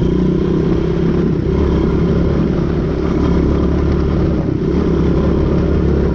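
Quad bike (ATV) engine running under way at fairly steady revs.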